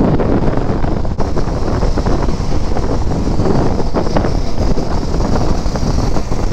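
Wind rushing over the microphone of a motorcycle riding at road speed, a loud steady noise with the low drone of the bike and road beneath it.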